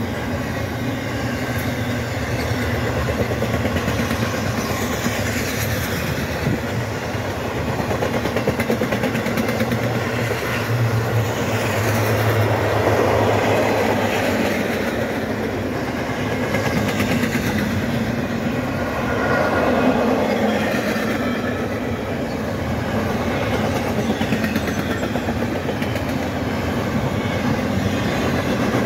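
Double-stack container freight cars rolling past close by: steady noise of steel wheels running on the rails, swelling twice, once near the middle and once about two-thirds through.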